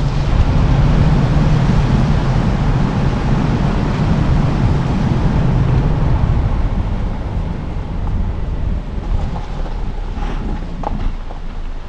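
Car on the move: steady tyre and engine noise with a low rumble that eases after about six seconds.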